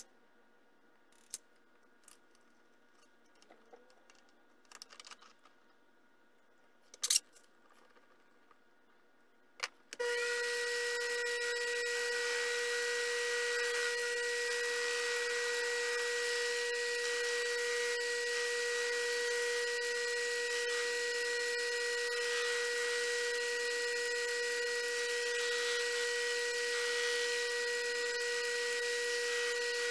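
A few small clicks and knocks of metal parts being handled, then about ten seconds in a Sherline benchtop lathe switches on and runs at a steady speed with an even, high whine and hiss.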